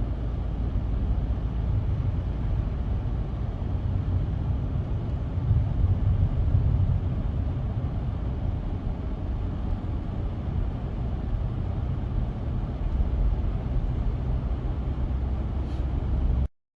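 Snow plow truck running: a steady low rumble that swells slightly in the middle.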